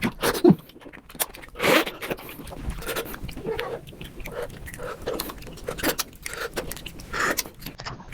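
Mukbang eating and chewing sounds played back at five times speed, so the chewing and smacking run together into a dense, fast stream of short clicks and scrapes.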